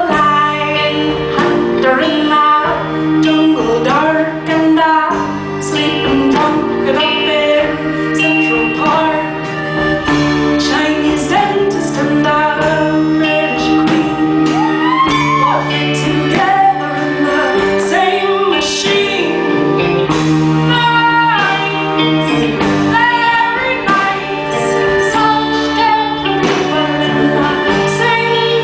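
Live band music with a woman singing lead into a microphone, backed by drum kit and guitar.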